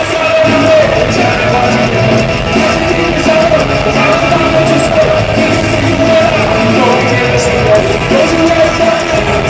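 Live rock band playing loudly, with instruments and voices in a full, dense mix.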